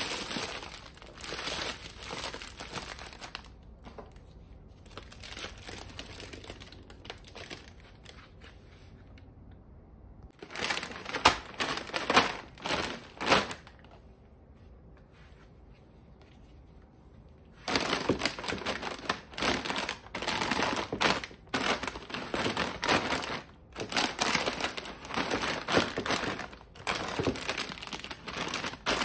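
Plastic grocery bags and crinkly snack packets rustling and crackling in irregular bursts as they are handled and packed into a plastic basket, with a quieter lull in the middle.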